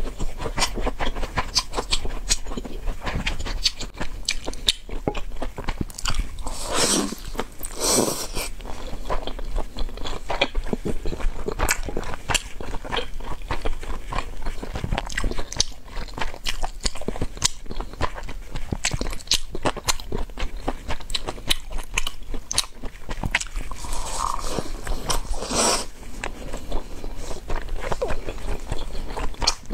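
Close-up chewing and biting of meat-filled shaomai dumplings dipped in chili-oil sauce: mouth eating sounds with many quick clicks throughout.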